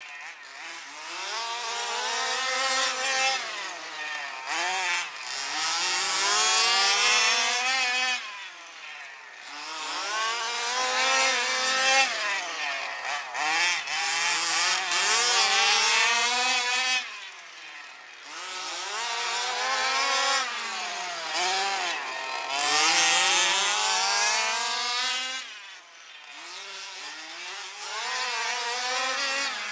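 Two gas-powered large-scale RC race cars with small two-stroke engines, revving up and easing off through the turns as they lap. The sound swells and fades roughly every nine seconds as the cars come past.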